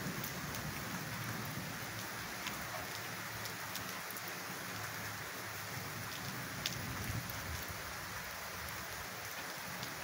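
Steady rain falling, an even hiss with a few sharp ticks of single drops.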